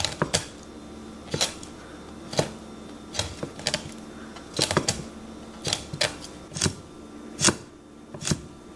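Heavy Japanese kitchen knife tapping a wooden cutting board with each bone-cutting stroke through a pike conger fillet: a dozen or so sharp, irregular knocks, about one to two a second.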